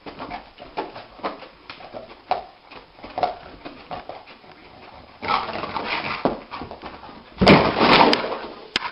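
A dog whimpering in short cries as it lies on its side with its legs paddling on carpet. In the second half come two louder, longer scuffles, the second the loudest, as the dog scrambles up to its feet against the wall.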